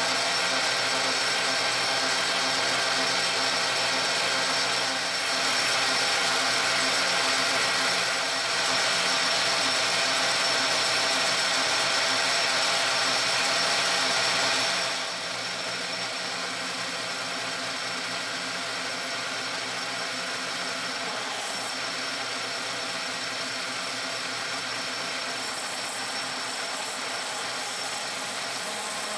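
South Bend metal lathe running, its tool facing the end of a spinning 2-inch aluminium bar. The sound is loud and steady for about the first half, then drops to a lower steady level for the rest.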